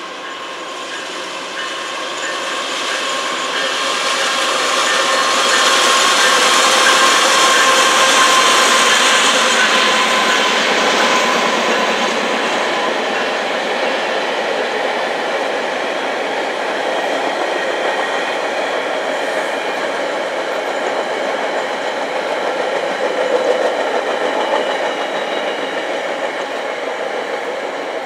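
Passenger train running past on the rails, its coaches rolling by in a continuous rumble with a few steady high tones from the wheels. It swells to its loudest several seconds in and stays loud as the coaches go by.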